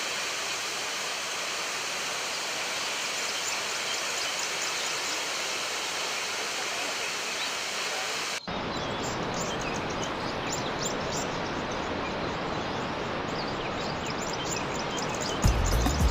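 Steady rush of running water. A hard cut about eight seconds in switches to another stretch of running water that sounds fuller and deeper.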